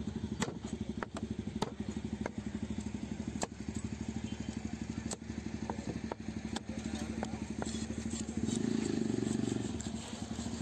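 Sharp knocks and scrapes of a long knife on a spotted scat and its wooden cutting block, a dozen or so strikes spread irregularly, over the steady running of an engine. The engine grows louder about eight and a half seconds in, then drops back.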